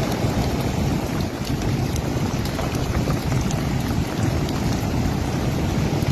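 Steady rush of hurricane wind and surf, with wind buffeting the microphone.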